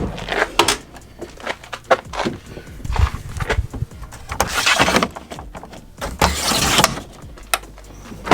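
Handling noise: a string of sharp clicks and knocks, with two brief scraping swishes, one about halfway through and one shortly after.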